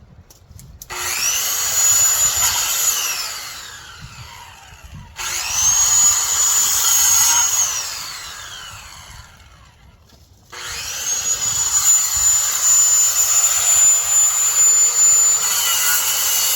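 An electric saw cutting brush and branches in three runs: the motor whines up to a high steady pitch, runs while cutting, then winds down with a falling whine when released. The third run starts about ten and a half seconds in and is still going at the end.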